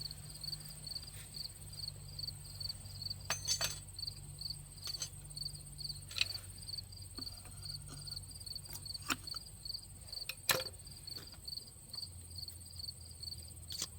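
Crickets chirping steadily, about two chirps a second over a thin high trill, with a few sharp metallic clicks and clinks from car parts and hand tools being handled.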